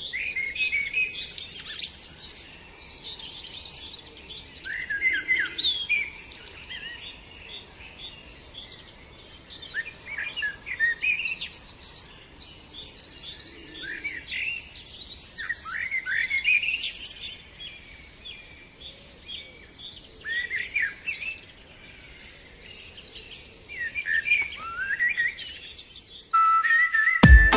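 Birds chirping and singing, many short calls and sliding whistles overlapping, coming and going in waves. Music starts near the end.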